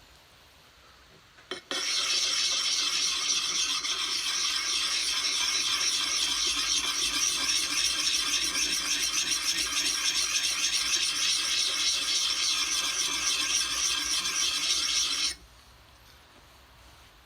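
Hand sharpening stone rubbed in circles against the steel cheek of a swamping axe: a steady gritty scraping that starts after a light click about two seconds in and cuts off suddenly a couple of seconds before the end.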